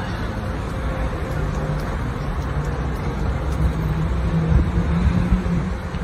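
Street traffic noise: a motor vehicle's engine hum over a steady low rumble, growing a little louder about four to five seconds in.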